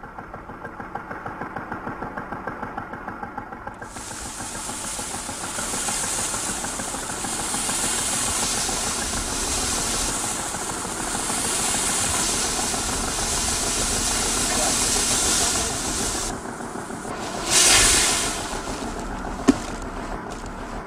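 A rush of grain and chaff streaming through the air. Soft pulsing at first becomes a steady hiss about four seconds in, with a brief louder surge and a sharp click near the end.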